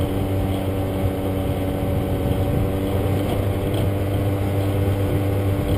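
Motor scooter engine running at a steady pitch while cruising, heard from the rider's seat along with road noise.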